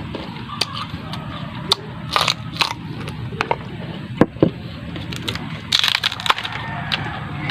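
Close-up chewing and crunching of crisp raw coconut heart: an irregular run of sharp crunches and clicks, loudest a little past the middle.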